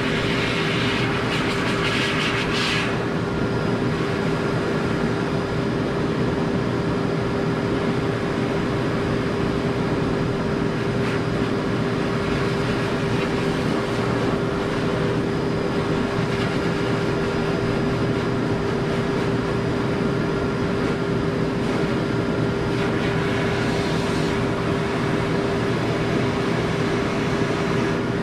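High-velocity pet dryer blower running steadily: a constant motor drone with a steady hum. The rush of air gets louder for the first few seconds and again about 23 seconds in.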